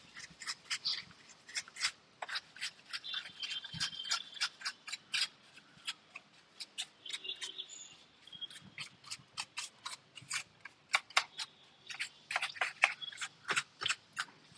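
Brush bristles scrubbing dust from the inside of an opened laptop: a quick, irregular run of short, scratchy strokes.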